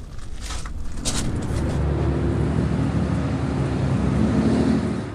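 A few footsteps on gravel, then a steady low engine rumble from a motor vehicle that holds for several seconds before cutting off at the end.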